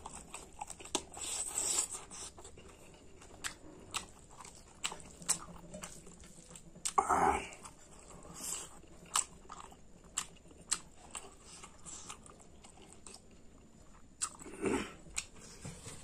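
A person chewing and biting a meal of pork curry and rice close to the microphone: many short crunches and mouth clicks, with a louder, longer burst of noise about seven seconds in and another near the end.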